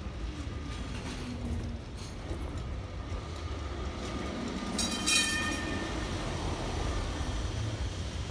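Vintage yellow Lisbon street tram (Carris Remodelado) passing close by on its rails with a steady low rumble. About five seconds in there is a brief shrill metallic sound, the loudest moment, as the tram goes by.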